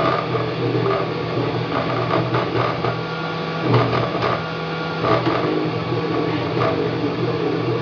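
Wanhao Duplicator 3 desktop 3D printer at work. Its stepper motors whine in quickly shifting tones as the print head moves, with occasional short clicks, over a steady low hum.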